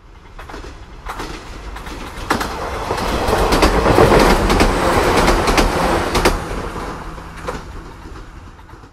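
A train passing by: rumbling wheels with irregular clicks over the rail joints, swelling to its loudest about four seconds in and then fading away.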